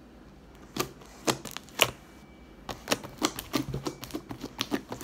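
Slime being pressed and poked with hands and fingers, giving off sticky pops and clicks: three separate pops in the first two seconds, then a fast run of many small crackling pops through the second half.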